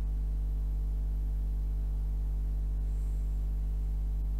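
Steady low electrical hum with a stack of evenly spaced overtones: mains hum on the recording, with no speech.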